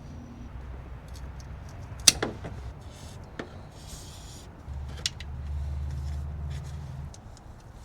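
Hand work on an engine bay: a few sharp metallic knocks and clinks from tools and parts being handled, the loudest about two seconds in with a brief ring, with rustling and a low rumble in the second half.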